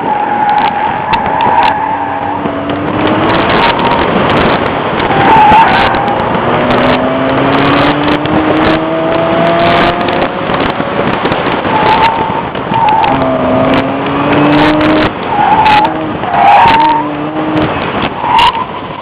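Chevrolet Cavalier driven hard on an autocross course: the engine revs up in several rising pulls, while the tires squeal again and again through the turns and slalom.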